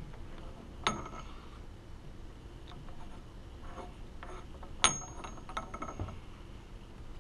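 Steel parts of a hot tapping machine clinking as the left-hand-threaded packing retaining nut is unscrewed by hand: two sharp clinks with a short ring, about a second in and about five seconds in, and a few lighter ticks just after the second.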